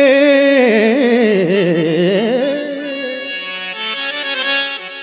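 A male singer singing a ghazal with a harmonium. He holds a note, then sings a wavering, ornamented line that dips and climbs back. About three seconds in the voice fades, leaving the harmonium's sustained chords.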